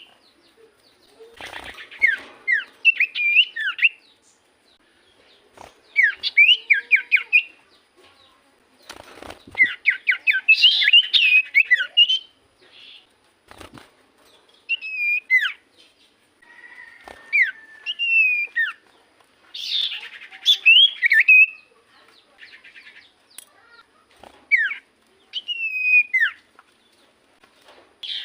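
Common iora (cipoh) singing in lively bursts of quick, sweeping whistled notes and chattering phrases, separated by short pauses, with a few faint clicks in between.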